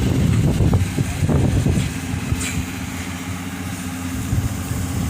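An engine running steadily at idle, with wind buffeting the microphone for the first two seconds.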